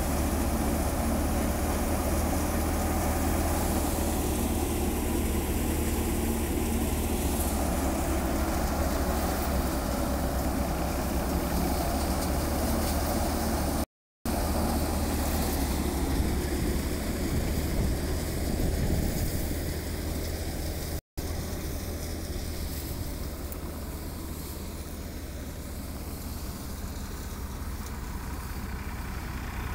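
Tractor-driven paddy thresher running steadily: a constant low engine drone under the noisy whir of the threshing machine. The sound drops out briefly twice and is a little quieter in the last third.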